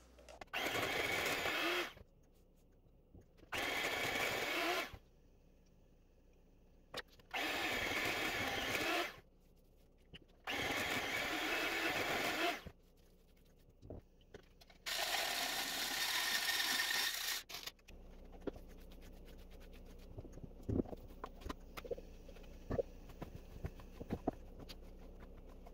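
Electric hand mixer whipping a thick peanut butter mousse mixture in a stainless steel bowl, switched on and off in five runs of one to three seconds with short pauses between. In the last few seconds a spatula faintly scrapes and taps against the bowl.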